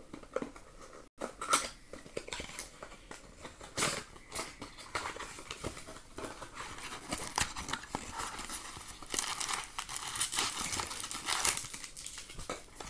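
Crinkling and rustling of foil trading-card pack wrappers being handled, with scattered sharp taps and clicks, busiest near the end.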